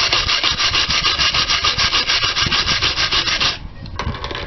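A small cheap hand brush scrubbed rapidly back and forth against an old metal hinge, brushing off rust loosened by a lemon-juice soak. The quick strokes come several a second and stop about three and a half seconds in.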